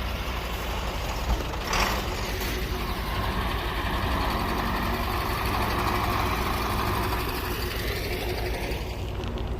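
Crane truck's engine running steadily, with a sharp knock about a second in and a short hiss just after.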